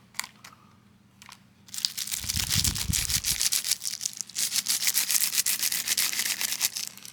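Plastic packaging rustling and crinkling while kit items are handled and unwrapped. After a couple of faint clicks it starts about two seconds in and runs as a dense, steady rustle.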